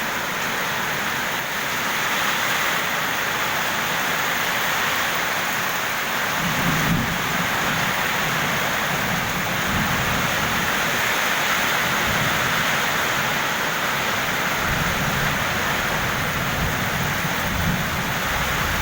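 Heavy rain pouring steadily in a storm. Low rumbling swells in about six seconds in and again through the last few seconds.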